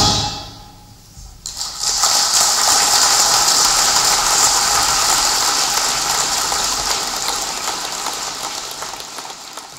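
A wind band's final chord dies away, and about a second later an audience breaks into applause. The clapping holds steady, then slowly fades toward the end.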